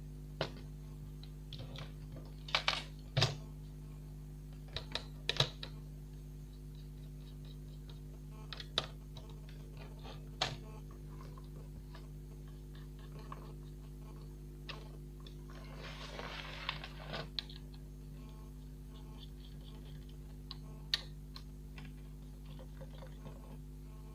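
Irregular clicks and taps of a small screwdriver and fingers on the metal CPU heatsink of a Toshiba Satellite A210 laptop motherboard, as its screws are undone to get at the processor. A short scraping rustle comes about two-thirds of the way in, over a steady low hum.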